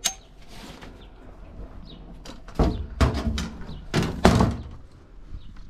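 A few handling thumps and knocks on a metal-grated floating dock, with a sharp click at the start and the loudest knocks about four seconds in.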